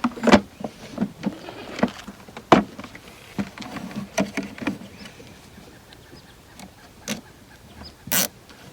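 Nylon zip tie being fed through a hole in a plastic storage box and pulled through its locking head, with irregular clicks, short ratcheting rattles and knocks of hands on the plastic.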